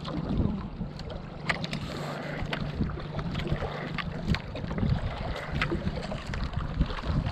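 Small outrigger boat's engine running steadily as a low hum, with wind on the microphone and scattered clicks and knocks.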